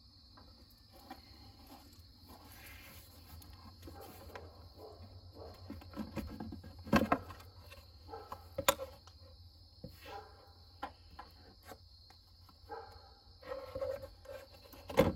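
Plastic lid of a 2012 Ford F-150's engine air filter box being worked loose and lifted off its housing, with rattling and scraping of plastic and a few sharp plastic knocks, loudest about 7 and 9 seconds in and again at the very end.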